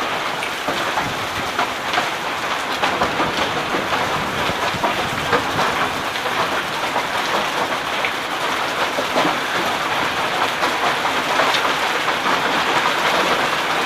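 Heavy downpour with hail: a steady dense hiss of rain, with many sharp ticks of hailstones striking surfaces all the way through.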